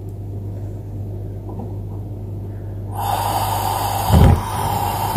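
Gas stove burner being lit with a match: the gas starts hissing about three seconds in, catches with a short low whoomp about a second later, and keeps burning with a steady hiss.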